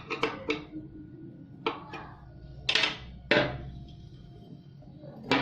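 A series of sharp metallic clinks and knocks, about eight in all and irregularly spaced, from metal parts or tools being handled and set down.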